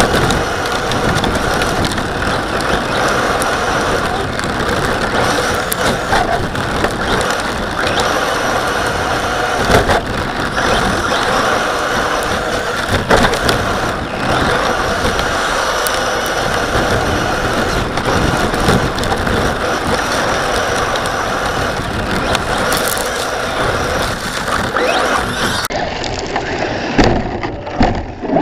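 RC buggy driving over icy, snowy ground, heard from on board: steady drivetrain gear noise and tyre rumble, broken by frequent knocks and jolts from bumps, the loudest about ten seconds in and near the end.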